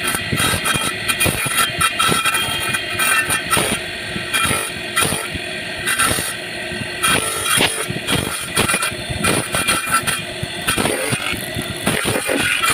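Small circular saw blade on an electric motor's shaft running steadily while a small piece of wood is fed into it, the loudness rising and falling as the blade bites into the cut.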